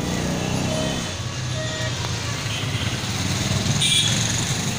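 Kirloskar KOEL Green diesel generator set running inside its acoustic enclosure, a steady engine drone. A brief higher-pitched sound about four seconds in.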